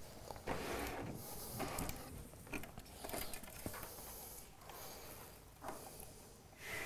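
Faint rustling and scattered light clicks of wires being handled and fed through a 3D printer's acrylic frame.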